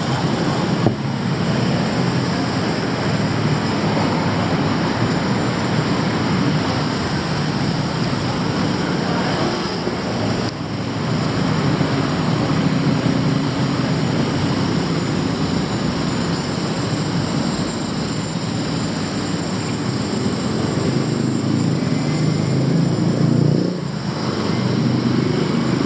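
Steady traffic noise of a busy city street: a continuous rumble of engines and tyres at an even, loud level.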